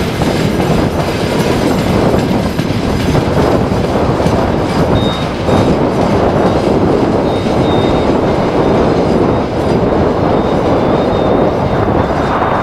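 Freight train wagons rolling along the track, a steady loud rumble of steel wheels on rails. A faint high wheel squeal comes and goes in the second half.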